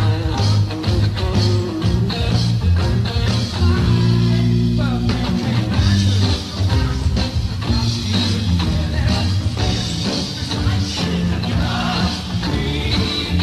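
Live rock band playing, with a male lead voice singing over piano and a full band accompaniment.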